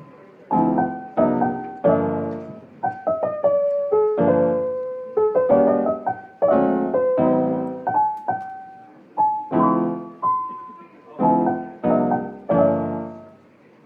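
Background piano music: slow struck chords and single notes that ring and fade.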